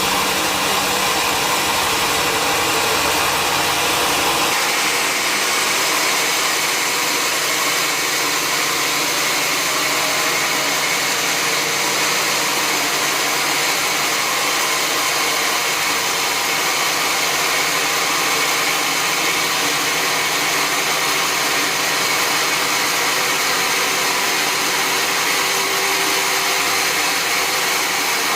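Sawmill log saw running steadily, a loud continuous machine noise with a hiss. About four and a half seconds in, the low hum drops away and a higher steady tone comes in.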